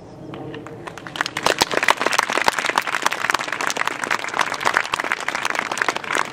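Crowd applauding: scattered claps about a second in quickly build into dense, sustained clapping.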